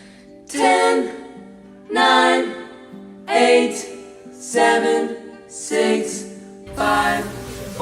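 Background music of voices singing: a short sung phrase about every second, over a held low note.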